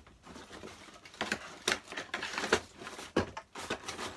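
Clear plastic packaging crinkling and rustling as it is handled, with several sharp clicks and knocks scattered through it.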